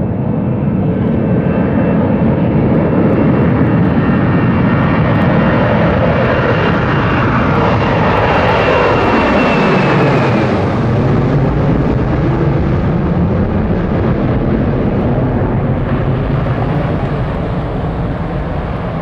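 Boeing 737-800 jet engines at takeoff thrust: a loud rumble and whine that builds as the airliner climbs out low overhead. The pitch drops as it passes about halfway through, then the noise carries on as a deeper rumble while it climbs away.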